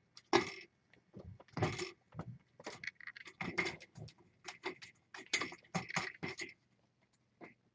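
Irregular rustling and scuffling noises with scattered clicks, stopping about a second before the end.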